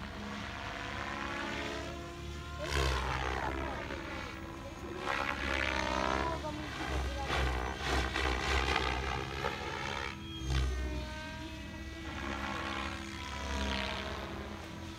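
MSH Protos 700 radio-controlled helicopter flying aerobatics: its rotor blades and drive whine and whoosh, sliding up and down in pitch as it swoops and turns, swelling louder several times as it passes.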